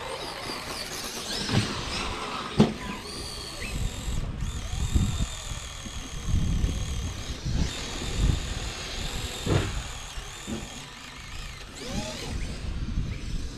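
Electric RC cars running on grass, their motors whining up and down in pitch with the throttle, over a low rumble. There are a couple of sharp knocks in the first few seconds.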